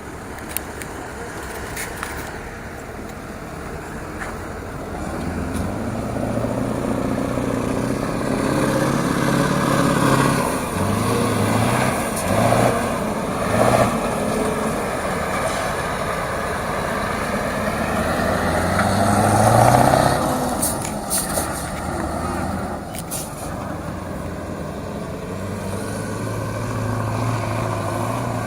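Scania V8 truck engine working under load, its pitch rising and falling with the revs and stepping between gears, loudest about two-thirds of the way through. A few sharp knocks and rattles come in the second half.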